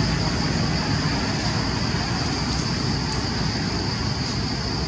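Steady rushing outdoor background noise with a constant high-pitched drone above it; no distinct events.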